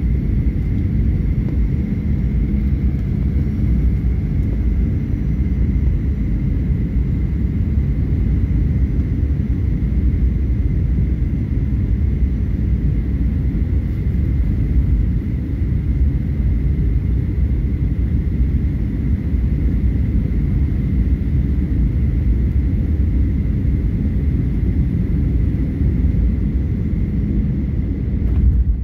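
Jet airliner cabin noise on final approach to landing: a steady rumble of engines and airflow with a faint steady whine, heard from inside the cabin.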